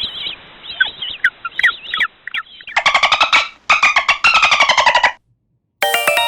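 Cartoon sound effects: a string of high wavering squeaks, then two quick bursts of rapidly repeated notes, and a bright chime near the end.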